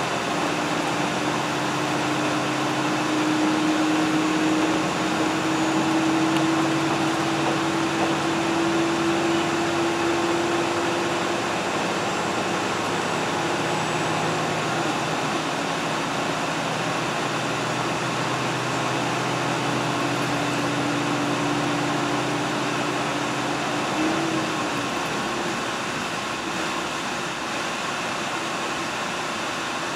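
A diesel train heard from inside the car as it runs along the line: a steady rumble and hiss of wheels and running gear, with an engine drone whose pitch rises slowly over the first ten seconds or so, fades, and returns briefly later.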